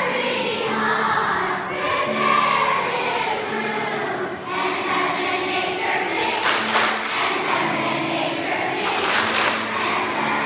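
Large children's school choir singing together, many young voices holding and moving through a melody.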